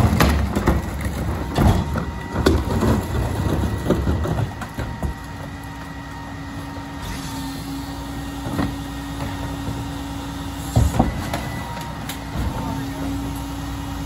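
Rear-loading garbage truck at work: plastic wheeled trash carts knocking and clattering against the hopper as they are handled and tipped, a run of thuds in the first few seconds. After about five seconds a steady hum from the truck's engine and hydraulics takes over as a cart is lifted on the cart tipper, with one more knock later on.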